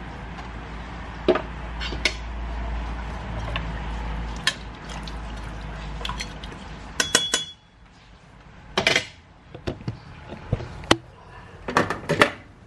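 Metal ladle stirring chicken tinola broth in a stainless steel pot, knocking and clinking against the pot's side at irregular intervals. One strike about seven seconds in rings briefly.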